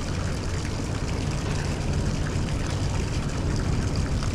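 Steady low drone of a boat engine running on the river, over a constant wash of water and city noise.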